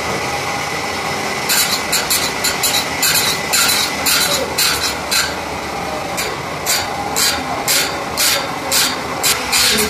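Automatic band saw blade sharpener: the grinding wheel's motor runs steadily, and from about a second and a half in the wheel grinds the saw teeth in a regular series of short, sharp rasps, about three a second, one per tooth as the blade is indexed along.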